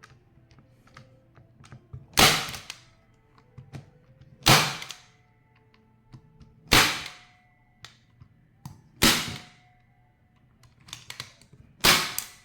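Unitacker Light Force manual staple gun firing five times, driving T50-type staples to fasten fence netting. Each shot is a sharp snap, about two to three seconds apart, with a faint metallic ring after some, and small handling clicks between shots.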